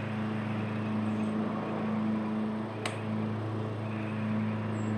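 A steady low background hum, like a motor or fan running, with a single sharp click about three seconds in.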